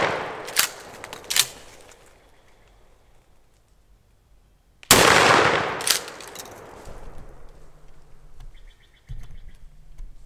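Shotgun shot about five seconds in, loud and sudden, trailing off over about two seconds. The start holds the fading tail of an earlier shot and two sharp cracks in the first second and a half.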